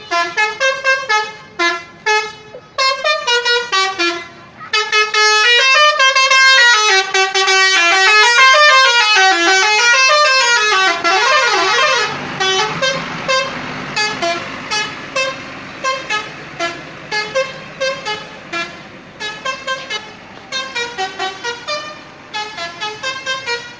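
Bus 'telolet' musical multi-tone horn playing a quick string of short melodic toots. In the middle the notes run together and waver up and down in pitch for several seconds, then the short toots resume.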